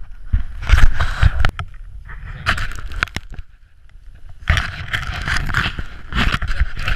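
Handling noise on a GoPro: gloved hands rubbing, knocking and pressing on the camera and its housing, with wind rumbling on the microphone. It comes in four loud, uneven bursts with a quieter gap about halfway through.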